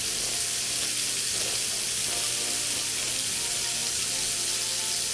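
A bacon-crusted burger patty frying in a cast iron skillet: a steady, even sizzle.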